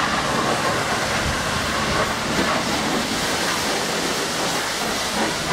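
Steady hiss of a pressure-washer jet spraying water, continuous and even.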